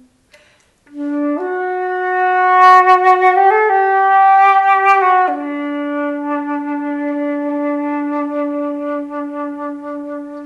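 Background music: a single melodic instrument, woodwind-like in tone, plays a few long held notes. It steps up to a higher note after about a second, drops to a lower held note about halfway through and fades out near the end.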